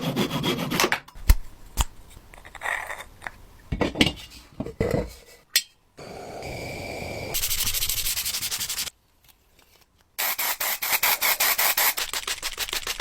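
Hand restoration work on the parts of an antique ice cream maker: rubbing and sanding strokes with scattered knocks and clatter of tools and parts. It comes in short cut segments, with a second of silence about nine seconds in, then fast, even back-and-forth scrubbing strokes.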